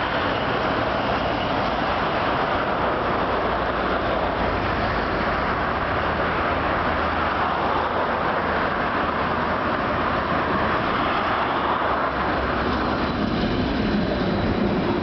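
Tram running along the track: steady rolling noise of wheels on rails, with a steady tone coming in near the end.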